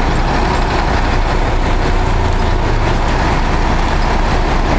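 Heavy truck diesel engine running steadily with a deep rumble.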